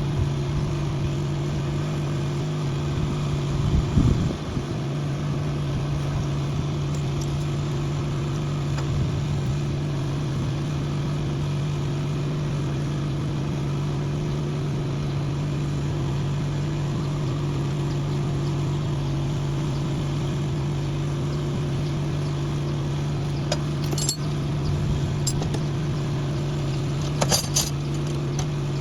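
An engine or motor running steadily with a constant low hum, plus a thump about four seconds in and a few sharp metallic clicks near the end.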